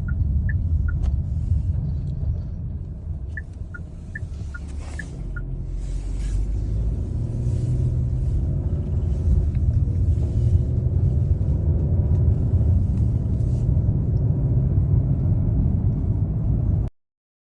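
Steady low road and drivetrain rumble inside a moving Chery Tiggo 8 Pro Max, easing and then building again. For a couple of seconds a dashboard indicator ticks in an alternating two-tone pattern. The sound cuts off suddenly near the end.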